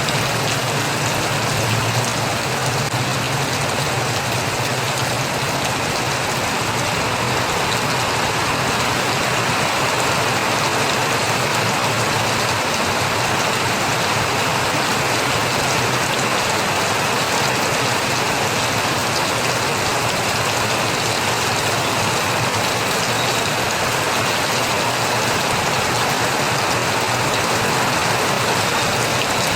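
Steady rain falling, a dense even hiss with no pause. A low hum underneath fades out about a third of the way through.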